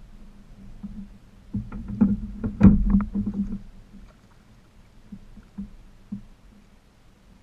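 Knocks and rattles on a fishing kayak's hull and gear while a fish is reeled in: a cluster of short knocks about one and a half to three and a half seconds in, the loudest near the middle, then a few faint knocks.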